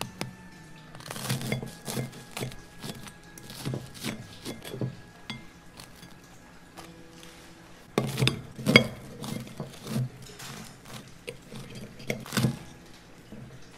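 Steel knife and fork cutting through a crisp, grill-toasted sandwich on a ceramic plate: the crust crunches and crackles while the cutlery scrapes and clinks against the plate. The clicks come irregularly, loudest about eight seconds in and again near the end.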